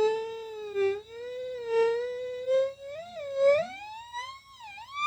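Electronic tone from two homemade voltage-controlled oscillators mixed in a doubly balanced mixer and played through a speaker. A wavering, theremin-like pitch glides up and down and climbs overall, with loudness swells about once a second. In the second half, fainter sum and difference tones slide against it.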